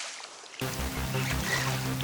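Background music: one piece fades out and a bass-heavy electronic track with a steady beat cuts in about half a second in.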